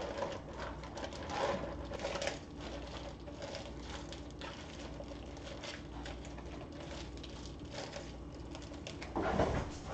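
A zip-top plastic bag crinkling and rustling as it is squeezed and shaken out over a glass mixing bowl, in faint irregular crackles, with a louder burst of handling noise near the end.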